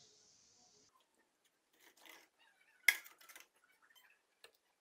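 Small metal clatter from handling an electrolysis rust-removal setup: one sharp metallic click about three seconds in, followed by a few lighter knocks, as the charger's crocodile clip is taken off and set down. A faint high hiss stops about a second in.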